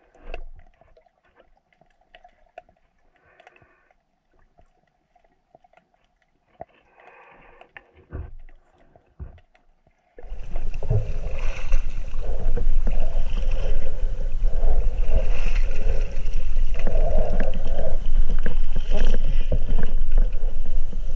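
Near-quiet underwater with a few faint clicks for the first ten seconds. Then a sudden, loud, continuous rough rumble of handling and movement noise from the camera being carried through riverbank grass.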